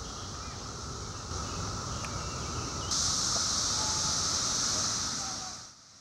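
Chorus of 17-year periodical cicadas (Magicicada) droning steadily, with a high hiss that grows louder about three seconds in and fades out near the end.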